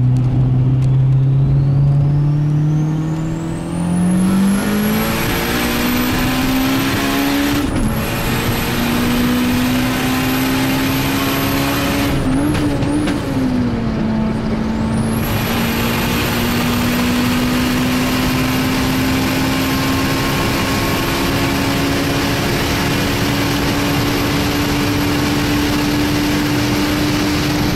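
Turbocharged Honda B16A2 1.6-litre inline-four pulling at full throttle, heard from inside the cabin. Its pitch climbs and dips at gear changes about eight and thirteen seconds in, then rises slowly in top gear at very high speed. A high whistle rises with the engine at first and drops out at each gear change.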